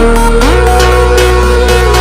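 Electronic background music with a steady beat and a deep bass; the bass and the held notes slide up in pitch about half a second in.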